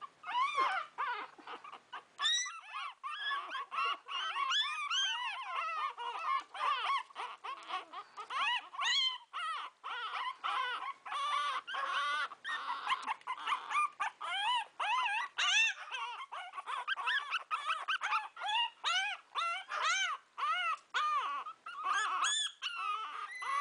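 Shih Tzu puppies whining and whimpering, a steady stream of short high-pitched cries that rise and fall, several at once.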